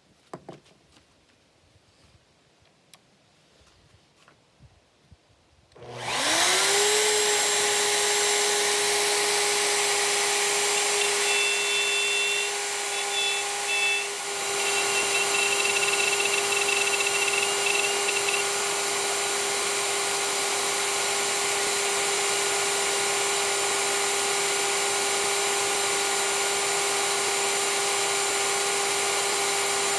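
Bosch plunge router switched on about six seconds in, its whine rising as the motor spins up, then running at a steady high pitch while it mills out the recess for a wood bow tie inlay. The level dips and wavers for a couple of seconds in the middle as the bit cuts. Before it starts there are only a few faint handling clicks.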